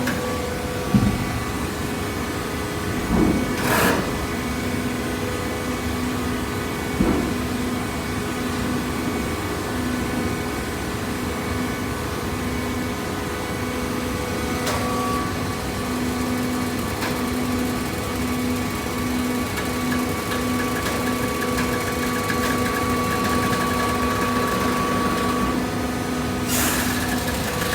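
Hydraulic baler running with a steady machine hum, with a few knocks in the first seven seconds and a short hiss near the end.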